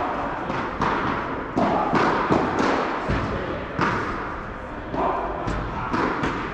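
Padel balls thudding, bounced on the court and struck with rackets, several irregular knocks each with a short echo of a large hall.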